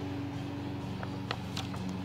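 A paper catalogue's cover and pages being turned by hand, with a few short paper crackles from about a second in, over a steady low hum.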